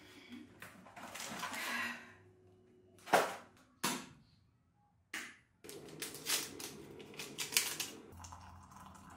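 Sharp clicks and clatter of kitchen things being handled, an electric kettle among them. There are two sharp clicks about three and four seconds in, then a run of clattering from about six to eight seconds.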